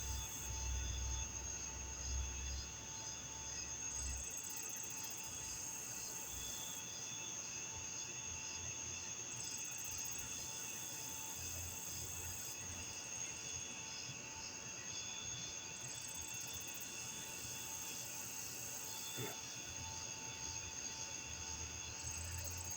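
Insects chirping: several steady high-pitched trills at once, one of them pulsing rapidly and evenly, with a faint low rumble during the first few seconds.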